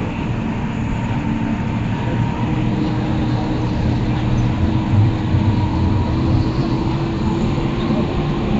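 Bus engine and road noise heard from inside the passenger cabin as the bus drives: a steady low drone with a faint constant whine above it, and a few brief louder jolts around the middle.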